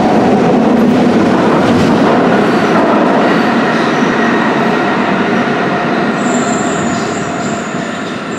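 Rome Metro train pulling out of the station into the tunnel, its rumble slowly fading. A thin, high wheel squeal rises about six seconds in.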